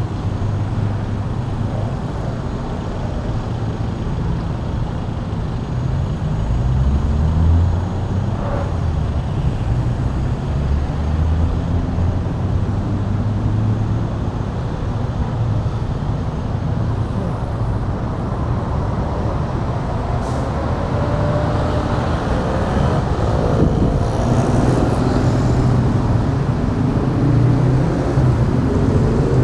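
Busy multi-lane road traffic with cars, pickups and motorbikes passing close by as a steady engine rumble. Engine notes swell and rise in pitch as vehicles pull away, about a quarter of the way in and again in the last few seconds.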